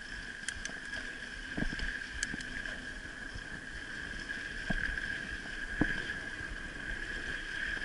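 Mountain bike ridden along dirt singletrack: low wind and tyre rumble, with a few sharp knocks and rattles from the bike, under a steady high-pitched whine.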